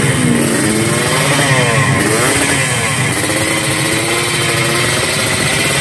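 Race-built Yamaha RX-King two-stroke single-cylinder engine, bored to 140 cc, revved by hand on the stand: its pitch rises and falls several times over a loud, continuous running note.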